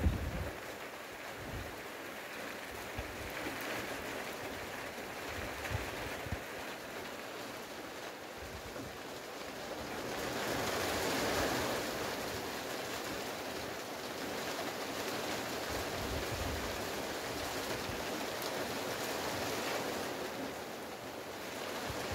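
Wind-driven rain sweeping over trees and a field: a steady rushing hiss that swells louder about halfway through. Low thumps of wind hitting the microphone come and go.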